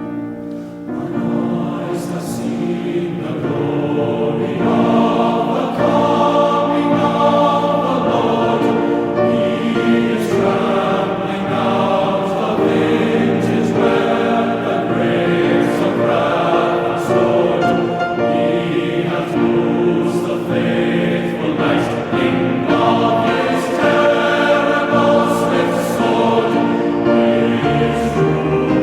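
Choral music: a choir singing sustained chords over instrumental accompaniment.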